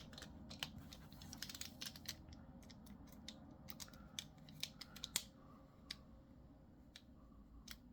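Small Torx screwdriver driving the handle screws of a folding knife: faint, irregular light metallic clicks and ticks of the bit and knife parts being handled.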